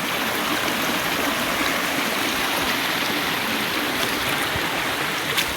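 Stream water flowing, a steady rushing noise, with a faint click near the end.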